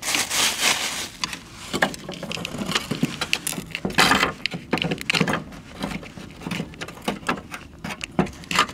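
Handling noises from a loosened fuel pump assembly being worked in its tank opening: irregular clicks, knocks and short scrapes of the metal flange, steel fuel lines and hoses. The loudest scrapes come at the start and about four seconds in.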